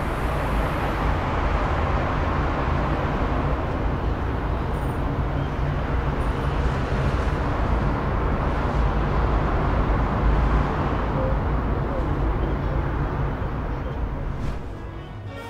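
Steady rushing outdoor noise with a deep low rumble, dropping away near the end.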